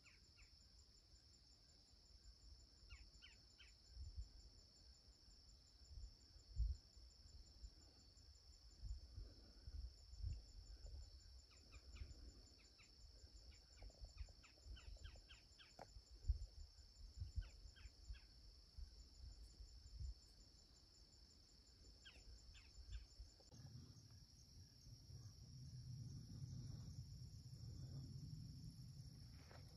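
Faint, steady high-pitched chorus of insects trilling. Scattered short high chirps come in clusters, and soft low thumps; a low rumble comes in for the last several seconds.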